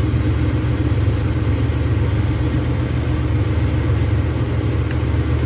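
Steady low mechanical hum, like an engine running at idle, with no change in level.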